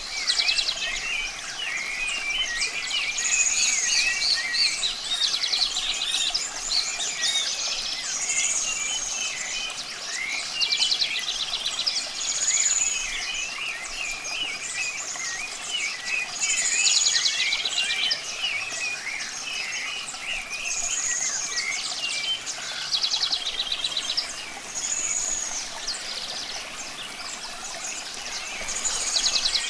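A chorus of songbirds calling and chirping over each other, one bird repeating the same short song phrase about every four seconds, over a faint steady hiss of running water.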